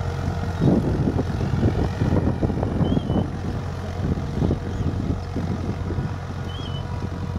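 Tractor's diesel engine running steadily as it pulls a seed drill, with gusty wind buffeting the microphone and a bird chirping twice.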